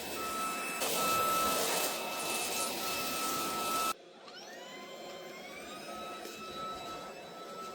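Homeika cordless stick vacuum running on carpet, a steady motor hum with a whine. About four seconds in the sound drops abruptly. The motor's whine then rises in pitch and settles, and it runs on more quietly.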